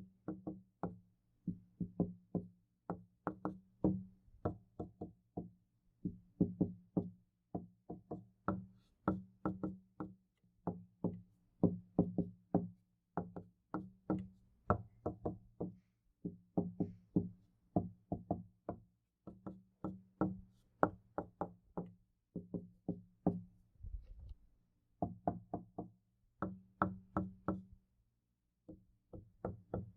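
Knuckles knocking on a wooden door in quick bursts of a few raps each, with short pauses between, the door ringing with a low hollow tone.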